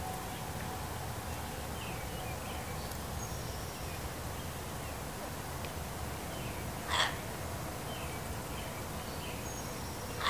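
Fox barking: two short, harsh single barks about three seconds apart, the second at the very end, over steady faint background noise.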